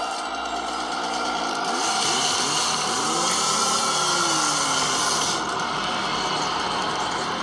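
Chainsaw revving, its engine pitch swinging up and down. It is loudest from about two seconds in and eases off a little after five seconds.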